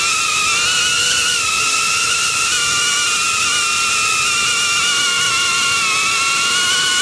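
FPV cinewhoop drone's electric motors and propellers whining steadily, heard through its onboard camera over a hiss of rushing air; the pitch wavers slightly as the drone flies.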